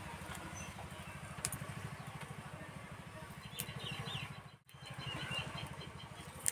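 A small engine chugging in the background with a fast, even low pulse, with a few bird chirps in the second half. The sound cuts out for a moment about two-thirds of the way through.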